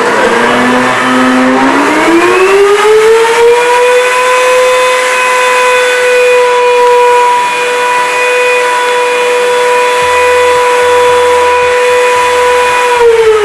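Blendtec blender motor on high speed, loud: a whine that climbs in pitch over the first few seconds as the blades spin up, holds steady, then starts to fall near the end as the motor is shut off and winds down.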